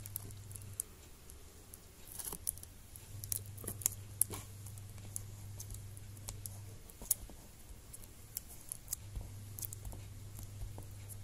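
Faint scattered clicks and rustles of fingers pressing a 30-pin ribbon cable connector into a laptop LCD panel and smoothing the tape over it, over a low hum that comes and goes.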